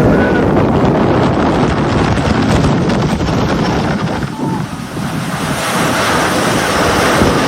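Strong wind blowing hard against a microphone: a loud, dense rushing noise that eases briefly about four to five seconds in.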